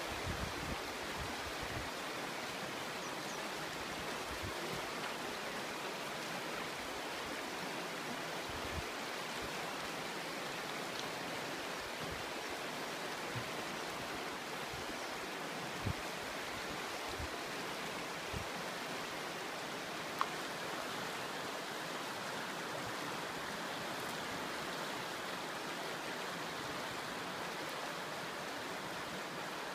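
Shallow, rocky river running steadily: an even rush of flowing water, with a couple of brief knocks near the middle.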